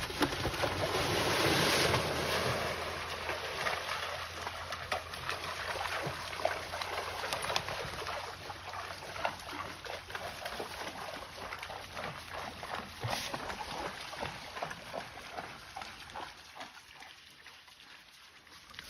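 Two white-tailed bucks fighting: a rustling, scuffling noise with many light clicks and knocks, loudest in the first two seconds and fading toward the end.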